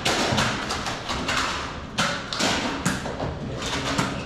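Irregular thumps and taps from a Nerf battle, a few strikes a second with no steady rhythm.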